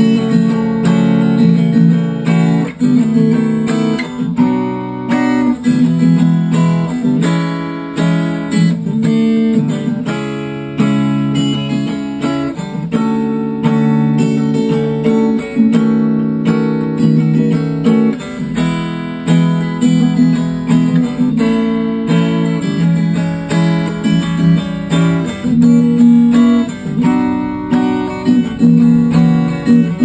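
Acoustic guitar strummed through a chord progression, the chords changing every second or two.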